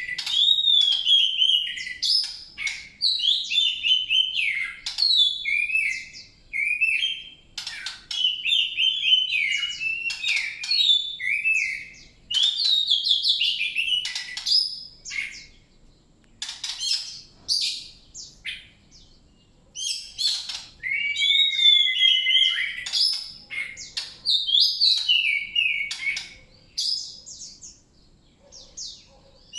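A songbird singing long bouts of rapid, varied warbling and chirping phrases, with brief pauses in the middle and near the end.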